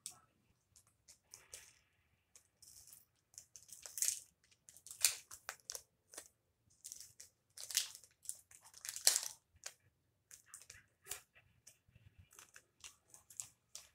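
Plastic wrapper of a trading-card pack crinkling and tearing by hand as it is opened, in short irregular bursts with a few louder rips.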